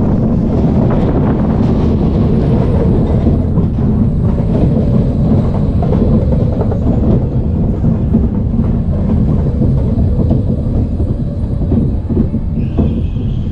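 Onboard an SBF Visa spinning coaster car rolling along its steel track: a steady loud rumble of the wheels with light clattering.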